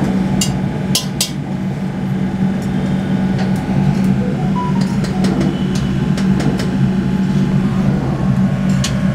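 A steel ladle clinks and scrapes against a steel kadai as cooking oil is ladled in. Beneath it runs a loud, steady low hum of kitchen machinery.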